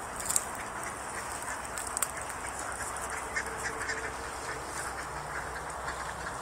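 A large flock of Canada geese on the water calling, a steady murmur of short calls and honks. Two sharp clicks come through, one just after the start and one about two seconds in.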